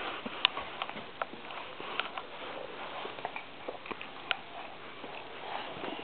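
Irregular light taps and clicks with a low rustle, from a toddler moving about and handling things right next to the microphone; a sharper knock comes at the very start and another about half a second in.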